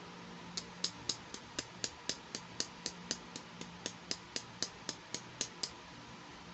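A quick, even run of about twenty small, sharp clicks, about four a second. It starts about half a second in and stops a second before the end.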